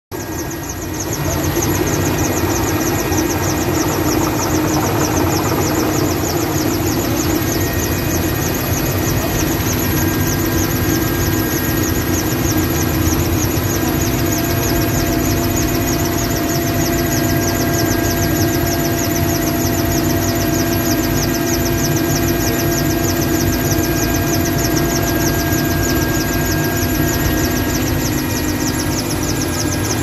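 Helicopter in flight heard from inside the cockpit: a loud, steady drone of turbine whine and rotor noise, with a fast, even flutter running through the hiss. It rises to full level within the first second or two.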